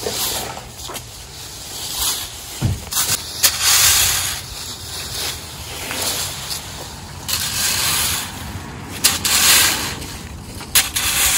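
Dry fallen leaves rustling and crunching in irregular bursts as they are cleared up, with a few sharp clicks among them.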